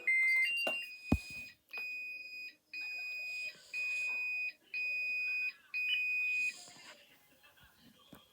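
Fire alarm system's electronic sounder beeping in alarm: five even, high-pitched beeps about one a second, each a little under a second long. The tail of an alternating two-tone signal at the very start, and a single click about a second in.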